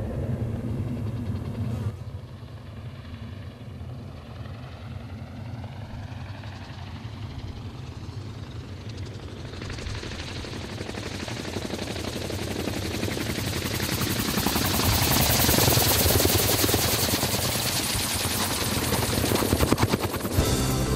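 SparrowHawk gyroplane in flight: a rapid chopping from its autorotating rotor over a steady low drone and rushing air noise. The noise grows louder from about halfway through, peaks about three-quarters in, then eases slightly.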